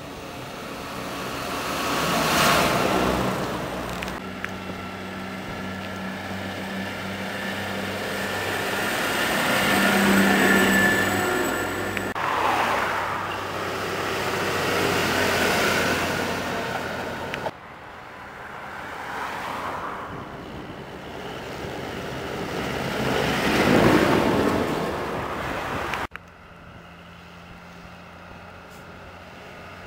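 Large diesel farm tractors drive past one after another, each engine growing loud as it approaches and fading as it goes by. There are four passes, with the sound cutting off abruptly between them, and a quieter, distant tractor near the end.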